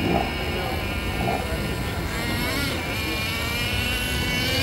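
Small electric motor of a radio-controlled model car whining as it drives, its pitch wavering as the throttle changes.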